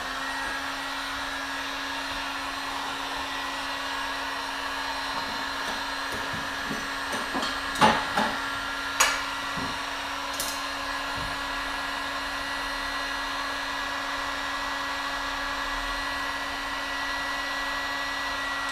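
Handheld electric hot air gun switched on and running steadily, a fan whir with a low hum, heating a plastic bumper cover to soften a high spot; it is switched off at the end. A couple of sharp knocks come about eight and nine seconds in.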